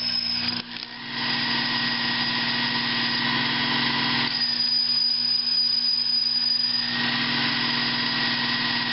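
Metal lathe running with a steady motor hum and a high whine, cutting metal on a part held in its chuck. The sound dips briefly about half a second in, and the whine and cutting noise change tone about four seconds in and again near seven seconds.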